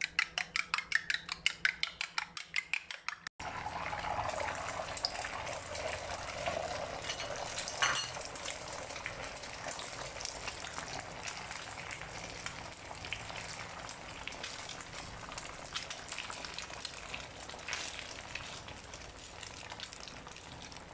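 Eggs being beaten in a glass bowl, a utensil clicking quickly against the glass at about seven strokes a second. About three seconds in it cuts to beaten eggs sizzling as they fry in an oiled pan, with a spoon now and then scraping and stirring.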